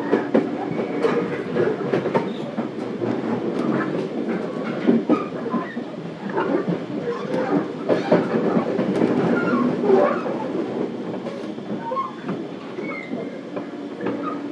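Running sound heard inside motor car MoHa 415-1512, a JR Kyushu 415 series 1500-subseries stainless-steel EMU, under way: a steady rumble from the running gear with frequent sharp clicks and clatter as the wheels pass over rail joints.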